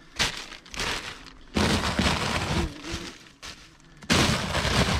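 A large wasp nest's papery envelope, mixed with attic insulation, being torn apart by a gloved hand: a rough tearing noise in three spells.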